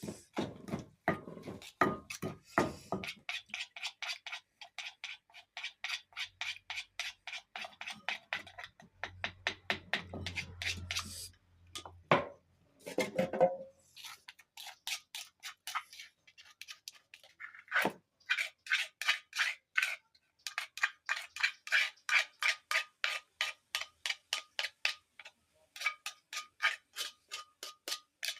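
Pestle pounding papaya salad in a wooden mortar: quick, even strokes about three to four a second, with a short break near the middle.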